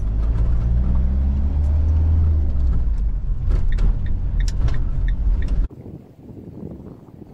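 Camper van's engine and road rumble heard inside the cab while driving slowly over a rough gravel road, with scattered clicks and rattles in the middle. About five and a half seconds in it cuts off abruptly to a much quieter wind noise.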